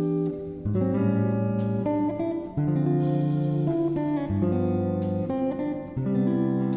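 Background music played on guitar: plucked and strummed notes in a steady, relaxed pattern.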